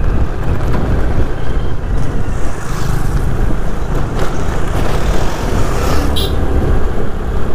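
Wind buffeting the microphone of a moving motor scooter, over the scooter's running engine and its tyres on a rough road; a steady rush with a heavy low rumble.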